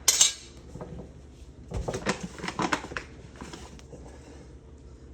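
Baking things being handled in a kitchen: a short, loud rustle at the start, then a run of light knocks and clatters about two seconds in.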